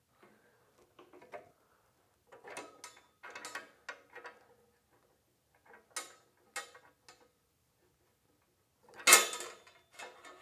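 Drill press table bracket and rack being worked onto the steel column: scattered metal clicks, knocks and short scrapes as it is shifted and fought into place, with one loud clank about nine seconds in.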